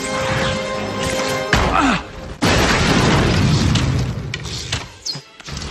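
Orchestral film score under loud action sound effects. A heavy impact comes about a second and a half in, then a long booming crash and rumble that drops away near the end.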